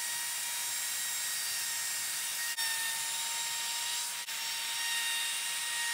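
Handheld router running steadily, a high motor whine over the hiss of a flush trim bit cutting plywood edges, with two brief breaks in the sound.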